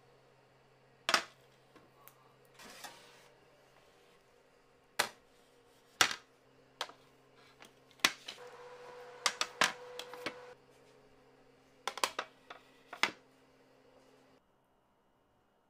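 Metal baking trays of meringue cookies knocking and clattering as they are handled and set down: about a dozen sharp knocks, with a busier stretch of clatter in the middle.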